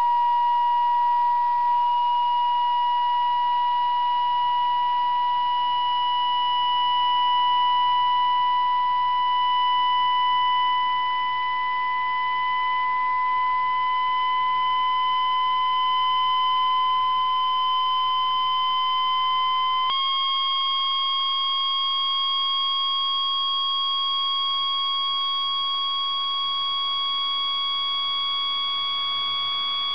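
Steady pure tone near 1 kHz from a signal-generator-driven shaker vibrating a tambourine's drum head, creeping slowly upward in pitch, with a small step up about two-thirds of the way through. The drive frequency is being moved through the membrane's modal frequencies, the ones that form Chladni figures.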